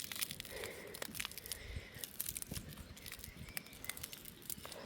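Faint, irregular small clicks and crinkling of broken plastic camcorder parts being handled and shifted about.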